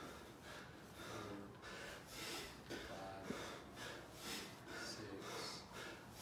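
Hard, rapid breathing of a man under exertion doing dumbbell squats, sharp breaths in and out coming less than a second apart. A single click about three seconds in.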